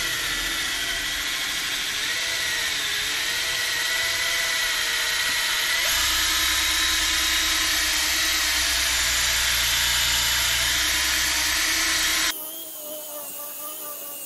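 Rechargeable Draper rotary polisher running steadily with its foam pad buffing cutting compound into a polycarbonate car roof, the motor's whine wavering slightly under load. About twelve seconds in it drops abruptly to a much quieter hum.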